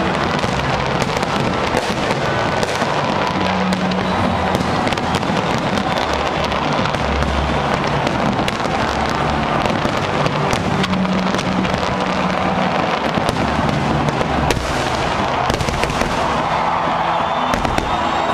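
Large fireworks display: a continuous barrage of bursting shells, many overlapping bangs and crackles with no let-up.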